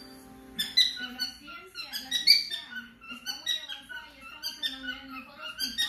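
Pet cockatiels singing: a run of short, sharp chirps and whistles that starts about half a second in and goes on in quick succession.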